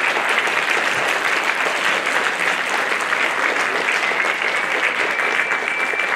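Audience applauding at the end of a concert band piece, dense steady clapping throughout, with a thin high held note over it in the last couple of seconds.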